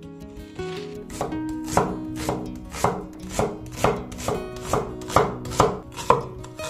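A cleaver-style kitchen knife chopping an onion on a wooden cutting board, the blade knocking on the wood in steady strokes about two a second from about a second in.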